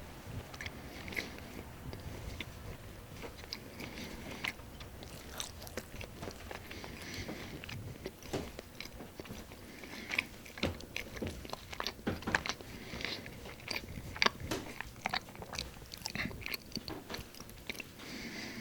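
Close-up bread eating: a person biting and chewing with moist, crunchy mouth sounds and many quick crackling clicks. The chewing grows busier in the middle stretch.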